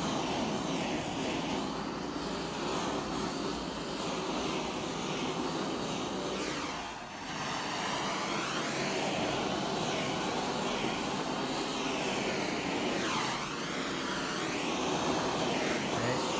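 Handheld gas torch flame rushing steadily as it is swept over freshly poured epoxy resin to pop the surface air bubbles. The rush dips briefly about seven seconds in, and its tone sweeps up and down as the torch moves.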